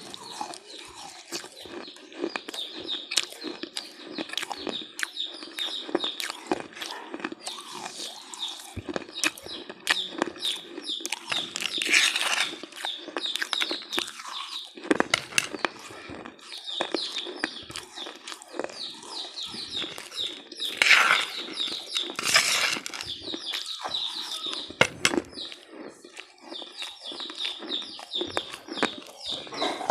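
A person chewing a crunchy snack close to the microphone: many quick, irregular crunches, with a few louder crunching bursts.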